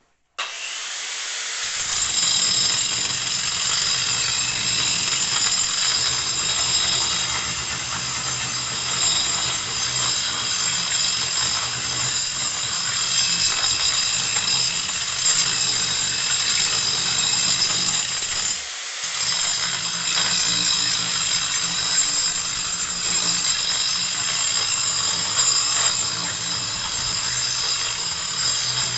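Electric power tool running continuously, a steady motor whine over a low hum, with a brief dip about two-thirds of the way through.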